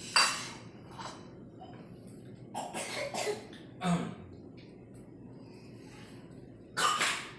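A person coughing: a sharp cough just after the start and another near the end, with a few shorter, weaker throat or voice sounds in between.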